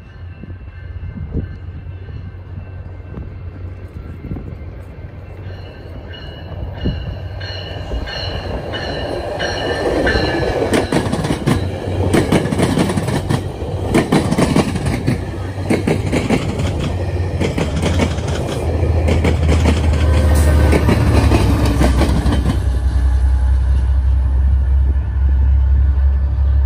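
GO Transit commuter train of bilevel coaches passing close at speed: rumble and rhythmic clatter of the wheels over the rail joints, with high metallic ringing tones in the first half. From about two-thirds of the way in, the deep drone of the diesel locomotive pushing at the rear grows louder as it nears.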